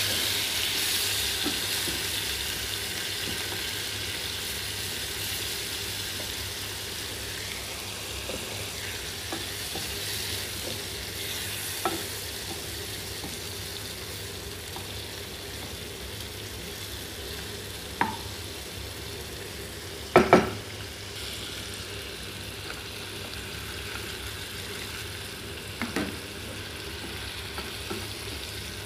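Shrimp sizzling in a frying pan as they are stirred with a wooden spatula: a steady frying hiss that eases off slowly. A few sharp knocks of the spatula against the pan break through, the loudest a double knock about two-thirds of the way in.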